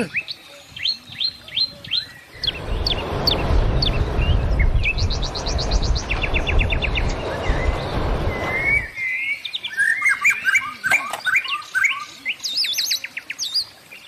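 Small birds chirping, with quick repeated trills and short rising and falling calls. Starting a couple of seconds in, a loud, steady rumbling noise runs for about six and a half seconds and then cuts off suddenly.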